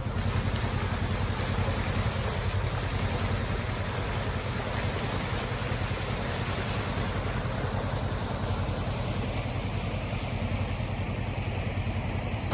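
Mountain stream in flood, running fast and full with runoff from days of heavy rain: a steady rushing of water, with a vehicle engine idling low and steady underneath.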